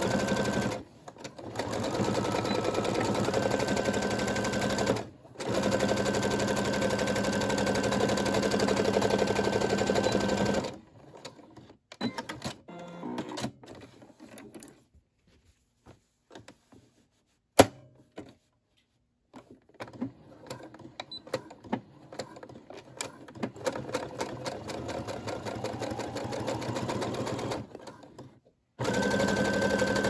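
Computerized electric sewing machine stitching a seam through cotton fabric in runs, pausing briefly twice. It then stops for several seconds of quiet fabric handling with a single sharp click. It starts again with a rising whine as it speeds up, stops, and restarts near the end.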